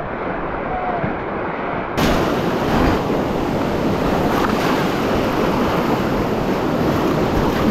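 Whitewater rapids rushing and splashing around an inflatable kayak, a steady loud roar of churning water. About two seconds in the sound suddenly turns louder and brighter.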